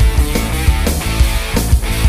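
Background rock music with electric guitar and a steady driving beat.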